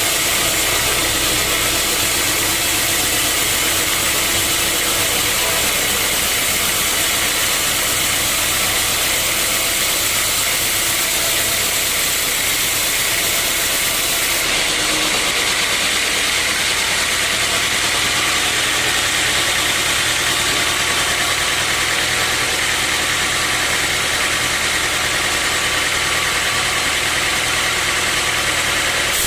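Sawmill machinery running steadily, a dense continuous mechanical hiss with a low hum, changing slightly in tone about halfway through.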